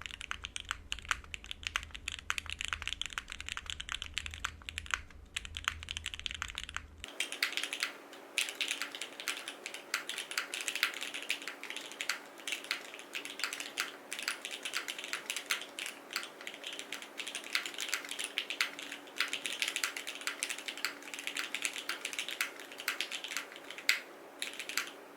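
Continuous typing on a Cycle7 mechanical keyboard with lubed and filmed Gateron Oil King linear switches, an FR4 plate, no foam and GMK keycaps: fast, dense keystroke clacks. A low hum underneath drops out about seven seconds in, and the typing stops just before the end.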